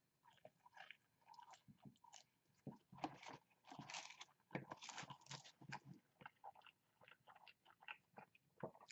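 Faint, irregular chewing and crunching of a person eating French fries with honey.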